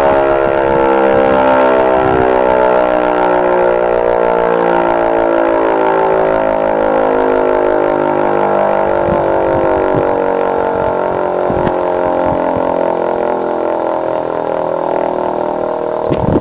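Restored Hörmann E57 electric motor siren winding down after a blast of the fire-alarm signal, its wailing tone sliding slowly and steadily lower in pitch as the rotor coasts.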